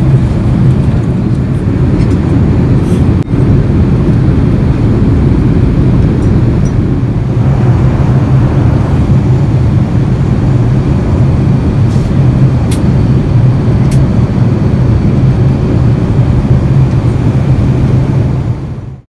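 Airliner cabin noise in flight: a steady low drone of engines and airflow, with a brief dip about three seconds in and a fade-out near the end.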